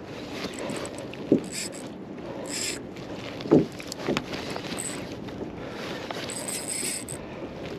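Fishing reel being worked against a heavy snapper on the line, over steady wind and water noise, with a few short knocks.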